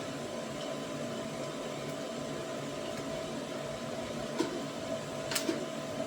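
TIG welding arc buzzing steadily, with a few faint clicks in the second half.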